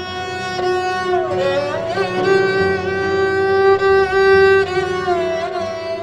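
Background music: a violin playing a slow melody of long held notes, sliding down in pitch about a second in, over a low sustained accompaniment.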